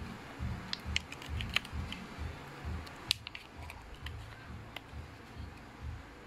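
Clear plastic packaging and protective film crackling and clicking as they are handled and pulled off a small MP3 player, in a string of short, irregular clicks.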